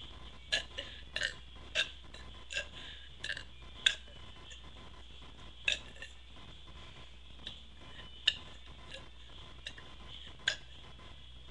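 A woman forcing up a series of short, sharp burps without soda, from swallowed air, about a dozen at uneven intervals.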